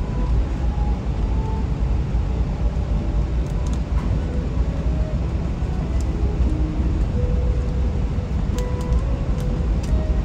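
Steady low rumble of an airliner cabin during taxi, with soft music of short held notes at changing pitches playing over it.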